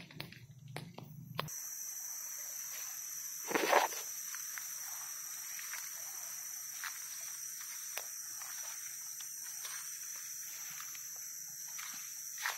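Footsteps crunching and rustling through dry leaf litter and undergrowth, with one louder crunch about three and a half seconds in. Under them is a steady high insect drone that starts abruptly about a second and a half in.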